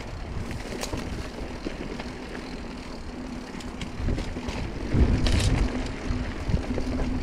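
Mountain bike rolling fast down a dirt singletrack: a steady hum from the knobby tyres, wind on the microphone, and rattling clicks from the bike over bumps, louder and rougher about five seconds in.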